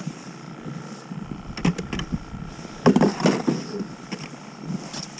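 A few knocks and clatters of ice-fishing gear being handled in a plastic sled, the loudest a little under three seconds in, over a low rumble.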